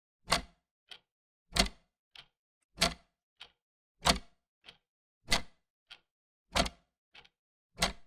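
Old mechanical clock ticking: a loud tick and then a softer tock about half a second later, the pair repeating evenly about every one and a quarter seconds.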